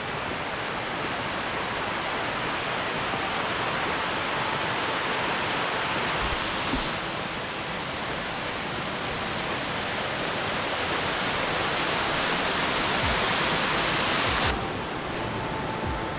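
Steady rush of falling water, an even noise with no tone in it, whose character changes abruptly about six seconds in and again about fourteen seconds in.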